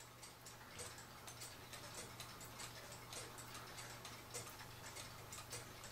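Cuckoo clock movement ticking faintly with a quick, steady run of ticks as its pendulum swings. Sitting level, the clock is out of beat and does not tick evenly, because the crutch wire behind the pendulum is bent.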